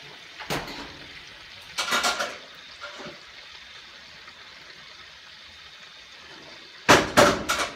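Clicks and knocks from hands working at a gas oven, with a loud rapid clatter of knocks near the end, over a steady faint hiss.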